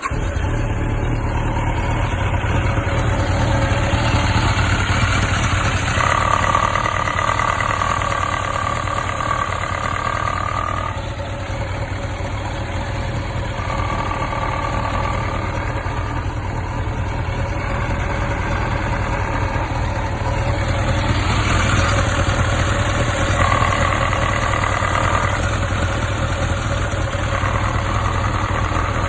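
1995 Kawasaki ZX1100 (ZZR1100) inline-four engine idling steadily, heard close up; the engine has a knock from a side cover that keeps time with engine speed and comes in when the bike is leaned upright or to the right, cause unknown to the owner. A higher whine comes and goes several times over the idle.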